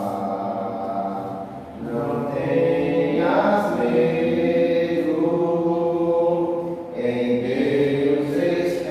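Slow church hymn sung by several voices holding long notes, moving to a new chord every couple of seconds.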